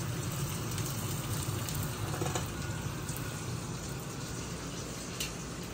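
Salmon fillets in teriyaki sauce sizzling steadily in a stainless frying pan, with a few faint clicks of metal tongs.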